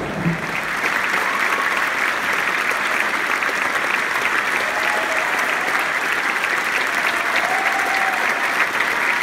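Large theatre audience applauding, swelling up in the first second and then holding steady.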